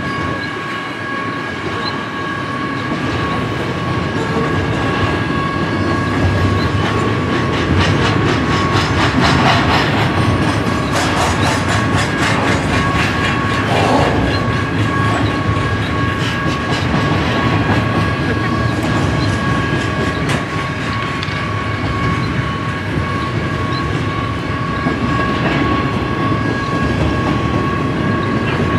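BNSF double-stack intermodal train's well cars rolling past, wheels clicking over the rail joints, the clicking thickest around the middle. A steady high-pitched ringing runs under the rumble.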